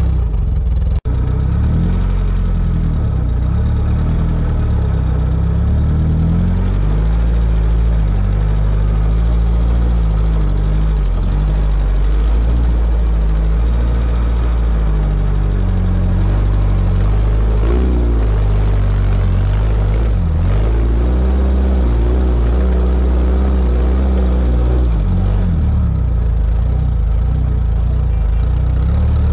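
Sporting trials car engine running at low revs on an onboard camera as the car climbs a grassy slope, with the revs rising and falling briefly now and then. There is a short break in the sound about a second in.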